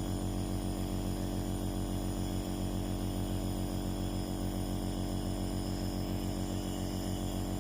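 Compressor nebulizer (steam inhaler) motor running, a steady low hum with a fine, even pulsing.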